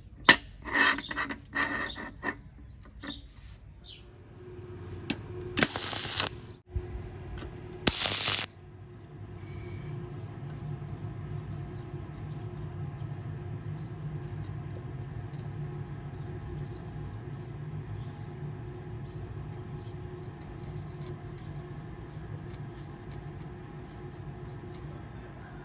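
Metal clinks and taps, then two short harsh bursts like an electrode being struck. From about ten seconds in, a stick-welding arc on stainless steel runs steadily, a fine crackle over a low hum.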